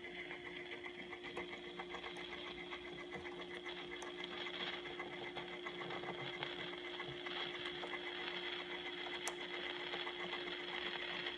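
RCA Victor AM clock radio tuned off-station: a steady low hum with faint hiss and fine crackle.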